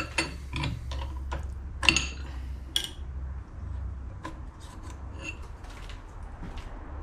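Metal clinks and knocks of a spanner on the milling machine's collet chuck nut as the chuck is loosened and taken off the spindle. The knocks are dense in the first three seconds, loudest just before two seconds in, then thin to lighter taps, over a steady low hum.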